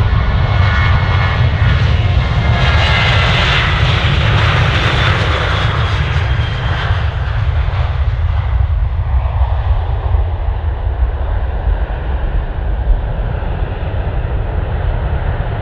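Boeing 737 twin jet engines at takeoff power: a loud, steady roar with a deep rumble and a thin whine on top in the first seconds. The hiss peaks as the jet passes on its takeoff roll, then the higher sound fades over the second half as it lifts off and climbs away.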